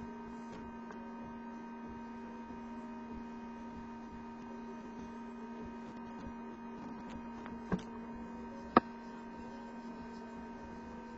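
Steady electrical hum with a faint higher whine, and two sharp clicks about a second apart near the end, the second louder.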